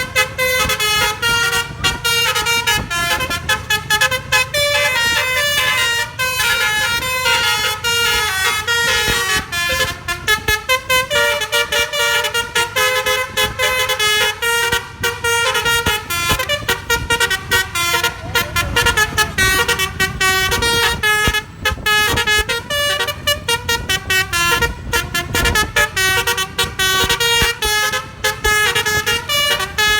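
Telolet bus horn (basuri), with its horns mounted on the roof, playing a rapid run of changing musical tones over and over. A low engine rumble runs underneath.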